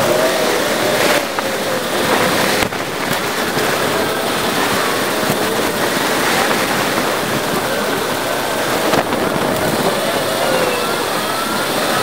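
Wind and road noise from a bicycle-mounted camera, played back eight times fast: a dense rushing hiss with faint chirpy sliding tones running through it.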